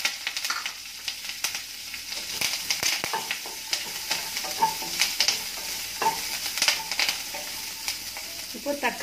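Chopped onions and curry leaves sizzling in a little oil in a nonstick kadai, with a spatula stirring them and clicking against the pan now and then.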